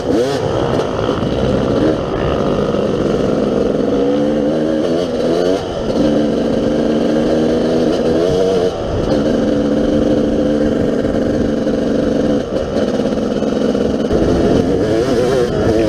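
Yamaha YZ250 two-stroke dirt bike engine being ridden hard. Its pitch climbs under acceleration and drops back at each gear change, several times over, with a steadier stretch in the middle.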